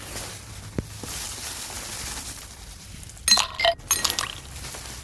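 A single soft knock, then about three seconds in a quick cluster of sharp clinks as hard objects knock together and ring briefly.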